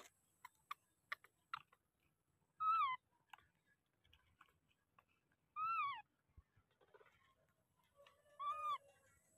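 Infant macaque giving three short plaintive calls a few seconds apart, each rising slightly and then falling in pitch. A few faint clicks come in the first couple of seconds.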